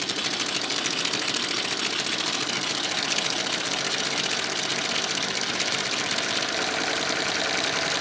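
Stuart triple expansion model steam engine running fast on steam, a rapid, even beat of its exhausts, with water and oil still spitting out of the exhaust as the last condensate clears.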